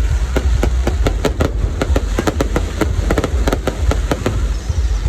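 Fireworks display: rapid, irregular bangs and crackles, several a second, over a constant low rumble.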